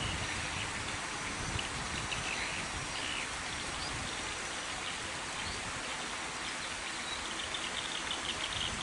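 Steady, even hiss of outdoor ambience, like running water or wind, with faint bird chirps now and then, more of them near the end.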